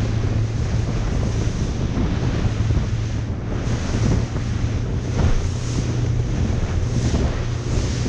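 Wind buffeting the microphone over the steady low hum of a fishing boat's engine and the wash of water.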